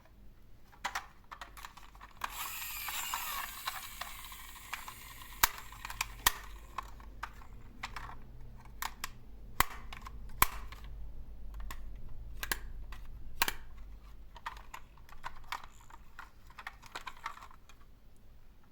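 Miniature toy cars rolling down a slope: a rattling roll about two seconds in, then a run of sharp clicks and knocks as the little cars bump and land, and another rattling roll near the end.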